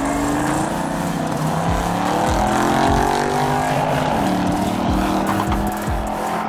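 Two drag-racing cars' engines running hard at full throttle down a drag strip, their pitch climbing steadily, then dropping sharply about four seconds in at an upshift before climbing again.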